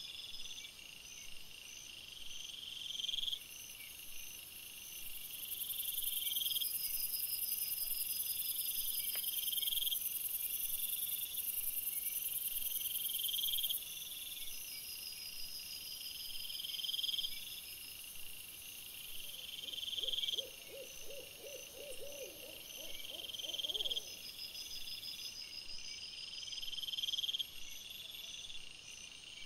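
Night-time insect chorus: high steady trills, with a rising chirp repeating about every one and a half to two seconds. From about twenty seconds in, a lower run of rapid pulses lasts about four seconds.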